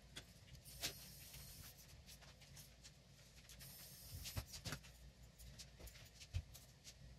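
Faint scattered clicks and taps of stiff plastic filament pieces being handled and fitted together by hand, with a couple of brief soft hisses.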